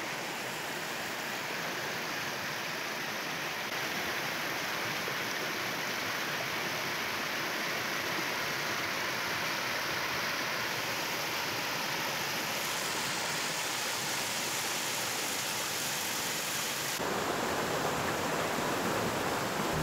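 Muddy floodwater rushing through a drainage channel in heavy rain: a steady, continuous rush of churning water.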